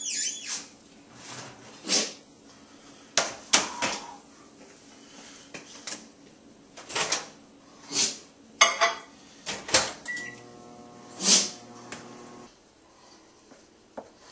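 Kitchen clatter as a metal baking pan of biscuits comes out of the oven and is set on the stovetop: a string of sharp knocks and clanks. A steady hum runs for about two seconds past the middle.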